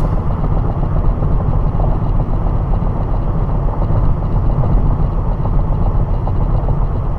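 Car driving at speed: a steady low rumble of engine and tyre/road noise, with little high-pitched sound in it.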